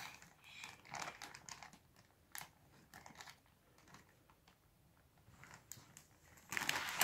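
Grey plastic mailing bag crinkling and rustling in short, irregular bursts as a small child's hands tug at it to tear it open. It goes almost still for a couple of seconds in the middle, then rustles more loudly near the end.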